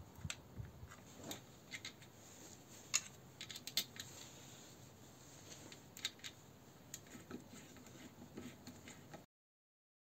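Scattered light metallic clicks and taps of a socket and small terminal nuts as wires are fastened to a tractor generator's new voltage regulator. The sound cuts to complete silence about a second before the end.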